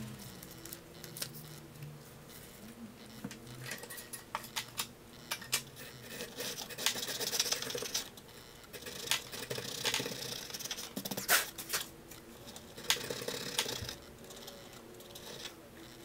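Blade scraping along the edges of a stack of paper pages clamped between boards, trimming them to size. There are repeated sharp clicks and ticks, with longer scraping strokes about six seconds in and again about twelve seconds in.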